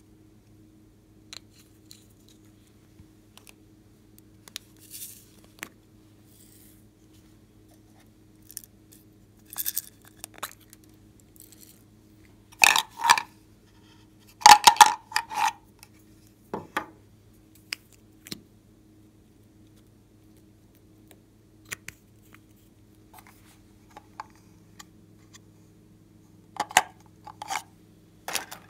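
Close-up handling of small plastic containers and a cardboard card: scattered clicks, taps and short crinkly scrapes, in a few clusters with the loudest about halfway through. A faint steady low hum lies underneath.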